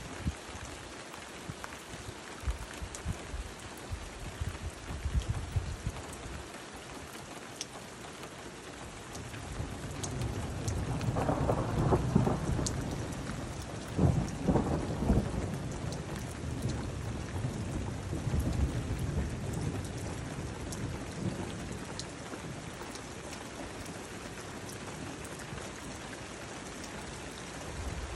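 Heavy rain hissing steadily, with a few close drops ticking. About ten seconds in, a long roll of thunder builds, peaks in the middle and dies away over several seconds.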